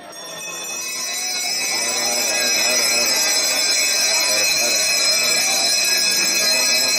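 Temple bells ringing continuously over a group of priests chanting together during a Hindu aarti, swelling in over the first two seconds or so.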